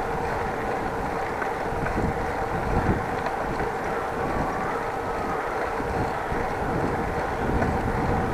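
Wind rushing over an action camera's microphone while cycling, with road rumble and a faint steady hum underneath.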